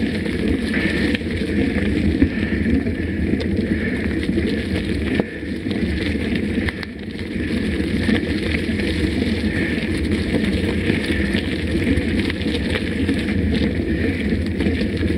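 Mountain bike riding on a dirt trail: steady tyre and drivetrain rumble with frequent small rattling clicks, and some wind on the microphone. It dips briefly about five to seven seconds in.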